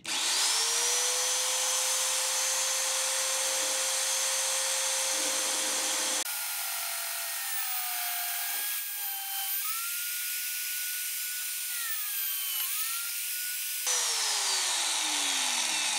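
VEVOR magnetic drill motor starting and spinning up to a steady pitch. About six seconds in it changes to a lower, wavering tone as its annular cutter bores through a rusty steel girder. Near the end the pitch falls steadily as the motor winds down.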